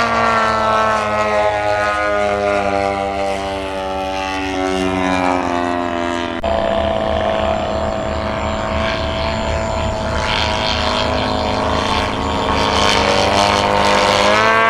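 Radio-controlled model airplane's propeller engine flying past: its engine note falls steadily in pitch over the first six seconds, then holds a steady drone and rises in pitch again near the end.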